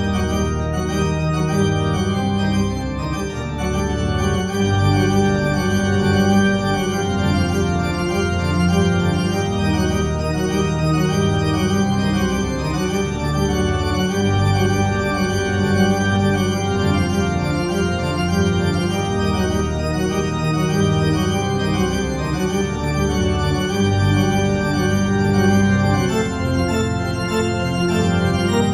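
Organ music playing slow, held chords as a silent-film accompaniment.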